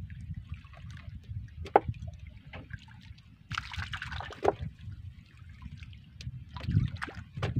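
Water splashing and dripping as a multi-hook fishing line is hauled up out of the sea into a small wooden outrigger boat, with a louder splash lasting about a second, midway through. A sharp knock comes near two seconds in, over a steady low rumble.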